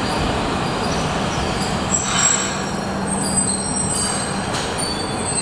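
Toyama Chiho Railway streetcar moving along the track: a steady electric-motor hum under rolling wheel noise, with thin high-pitched wheel squeal joining from about two seconds in.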